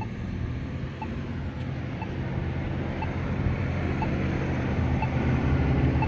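Polara iN3 crosswalk push button's locator tone: short ticks about once a second. Under them runs the rumble of a road vehicle's engine, growing louder toward the end.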